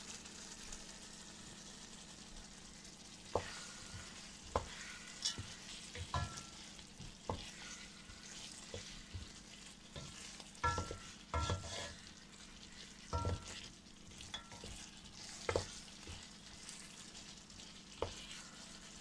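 Wooden spatula stirring and scraping chicken curry in a pan over a steady frying sizzle, with irregular knocks of the spatula against the pan.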